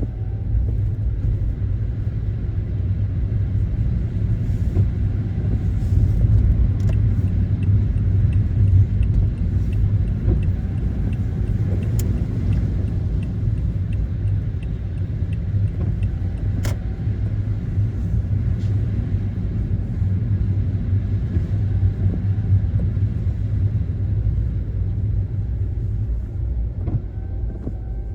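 Car driving on the road: a steady low rumble of tyres and engine. A light, regular ticking runs for several seconds in the middle.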